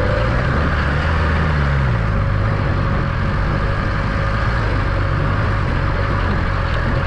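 BMW S1000RR's inline-four engine running under a steady rush of wind noise on the mic, its revs falling about a second and a half in.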